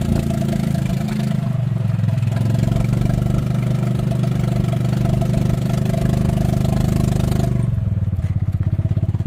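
A vehicle engine running steadily. Its pitch eases down about a second and a half in, and near the end it drops to an evenly pulsing idle.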